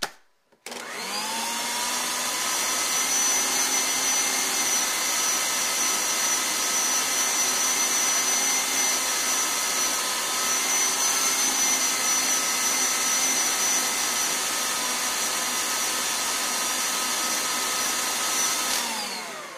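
Electric stand mixer with a center-post bowl and dough hooks kneading soft pretzel dough. Its motor starts about a second in with a rising whine as it comes up to speed, runs steadily, then winds down near the end.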